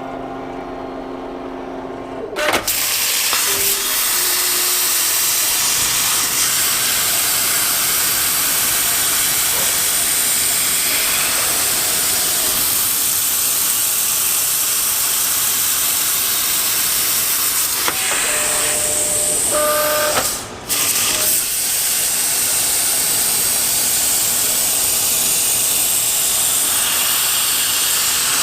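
CNC plasma cutter with a fine-cut tip at 45 amps, cutting steel plate. A quieter sound with a few steady tones lasts about two seconds. Then a loud, steady hiss of the cutting arc begins abruptly and holds, cuts out briefly about twenty seconds in, and starts again.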